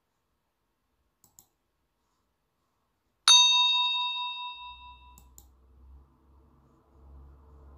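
A single bright bell-like ding about three seconds in, ringing on and fading over about two seconds: a sound effect marking the reveal of the answer.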